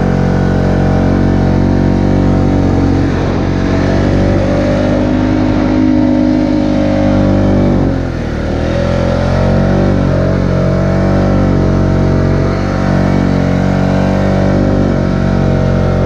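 Polaris four-wheeler (ATV) engine running steadily under throttle while driving through snow. Its pitch sags about halfway through, then climbs back and holds.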